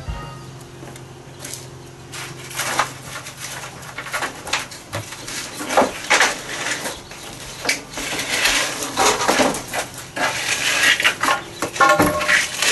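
Irregular clattering and knocking of scrap wood and other junk being handled, dropped and piled, growing busier toward the end.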